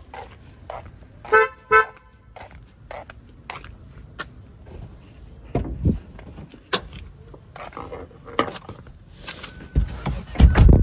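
A car's horn gives two quick chirps about a second in as the car is unlocked by remote, followed by shuffling steps and clicks of getting in, and heavy car-door thuds, the loudest just before the end.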